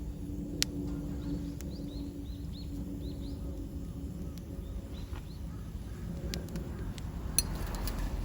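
Outdoor ambience: a bird gives a quick run of short, falling chirps, about four a second, over a steady low rumble, with a few sharp clicks, the loudest one near the end.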